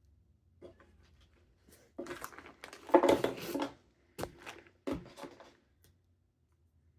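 Handling noise from unpacking: a run of clicks, knocks and rustling scrapes, loudest about two to four seconds in, with a sharp knock at about four and at about five seconds.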